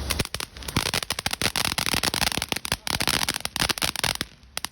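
Fireworks crackling: a dense, irregular run of sharp pops and cracks in quick succession, dropping off briefly about four seconds in.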